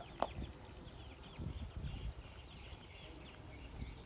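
Faint chirping of small birds, many short falling calls, with one sharp click shortly after the start and a few soft knocks around the middle.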